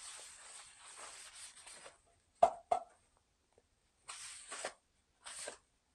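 Paper towel wiping out the inside of a ceramic-coated frying pan, a dry rubbing rustle. Two quick sharp knocks come about two and a half seconds in, then two more short wipes.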